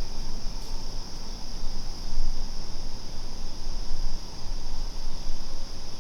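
Steady high-pitched chorus of crickets, over a constant low rumble on the microphone.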